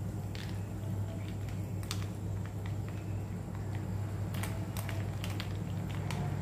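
Steel spoon stirring ice cubes in a glass of soft drink, with irregular small clinks and knocks against the ice and the glass, over a steady low hum.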